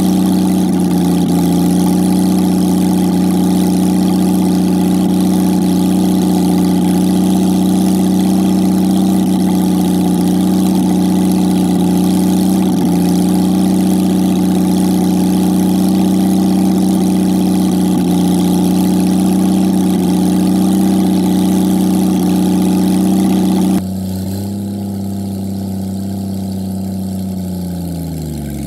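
Jaguar XK straight-six engine idling steadily. About 24 s in it becomes quieter, and near the end the engine note dips briefly as the revs sag.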